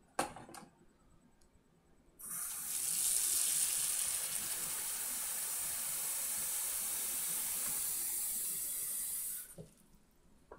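A sharp knock just after the start, then a kitchen faucet turned on about two seconds in, running steadily into a stainless steel sink, and shut off near the end.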